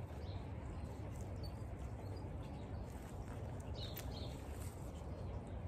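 Quiet outdoor garden ambience: a steady low rumble with a few faint, short bird chirps, and a single sharp click about four seconds in.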